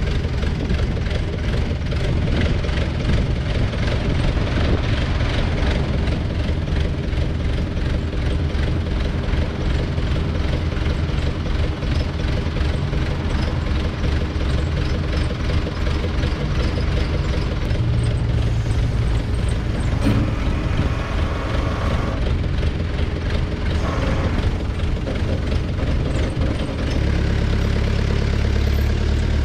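Diesel engines of a Takeuchi mini excavator and a backhoe loader running together as they lift and set a heavy concrete catch basin. About two seconds before the end the sound settles into a steadier, deeper engine hum.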